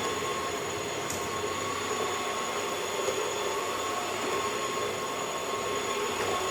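Dyson Wash G1 wet floor cleaner running with a steady whirring hum and a few held tones, much quieter than an ordinary vacuum cleaner.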